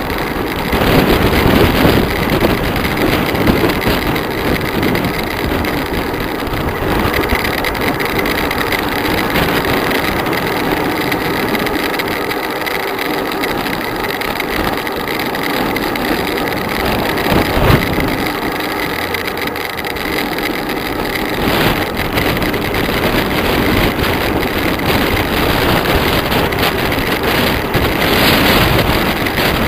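Loud, steady wind rush buffeting the microphone of a camera moving at speed on a downhill bicycle run, with road noise underneath.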